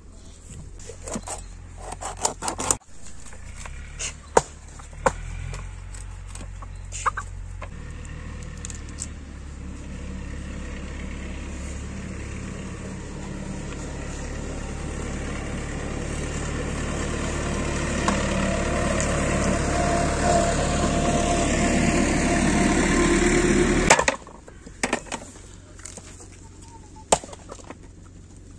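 A few sharp knocks of a cleaver chopping on a wooden board, then a steady engine hum that grows louder for about twenty seconds and cuts off suddenly near the end, followed by a few more knocks.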